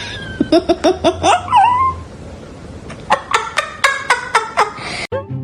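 A person laughing in two runs of quick, short 'ha-ha' pulses with a pause between them.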